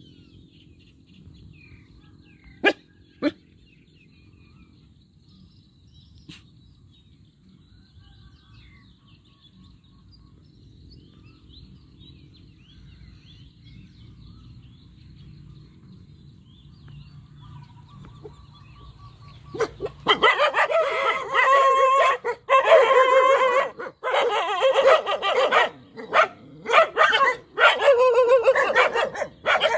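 Puppies barking in a loud, continuous string of barks over the last ten seconds or so, after a quieter stretch broken only by two sharp clicks about three seconds in.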